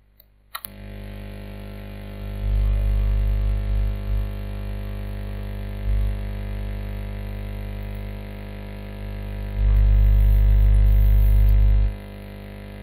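Steady electrical mains hum with a buzzing stack of overtones, coming in suddenly just after a couple of clicks under a second in. A louder low rumble swells in around two to four seconds and again from about ten to twelve seconds.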